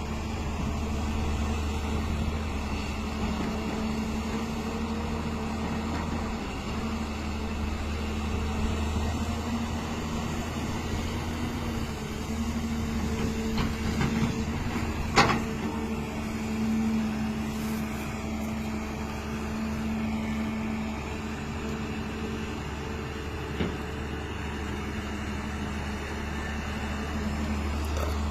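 Hyundai excavator's diesel engine running steadily under work, a deep hum with a steady tone above it. A sharp knock sounds about halfway through, and a fainter one later.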